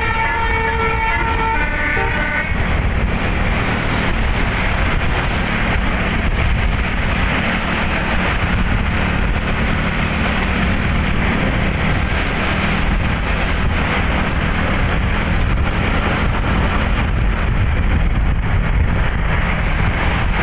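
A tour bus's Basuri telolet musical air horn plays a stepped multi-note melody that stops about two seconds in. After that comes a steady rush of bus engine and road noise.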